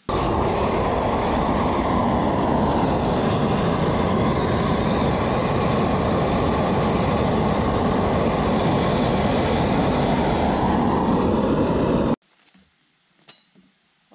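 Gas torch flame burning with a loud, steady rushing noise that cuts off abruptly about twelve seconds in.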